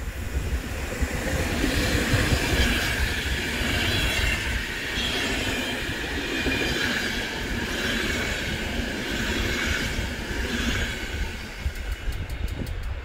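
PKP Intercity express train, an EU44 (Siemens Taurus) electric locomotive and its passenger coaches, passing at speed: a loud, continuous rushing rumble of wheels on rails, loudest a couple of seconds in as the locomotive goes by.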